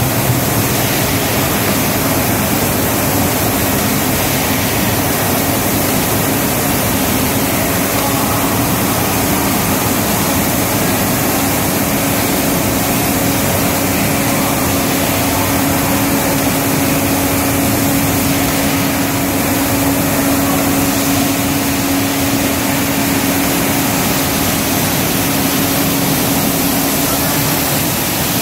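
Paint-spraying equipment running continuously: a loud, steady hiss with a constant low hum under it.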